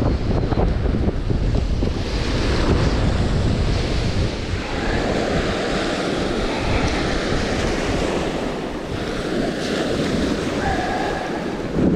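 Surf waves breaking and washing, with wind buffeting the microphone.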